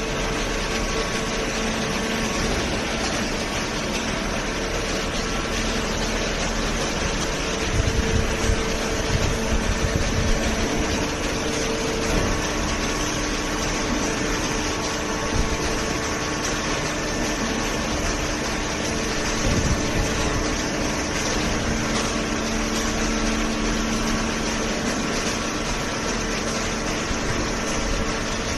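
Hydraulic cardboard baler running: a steady machine hum from its motor and hydraulic pump, with a few heavier low swells as it works.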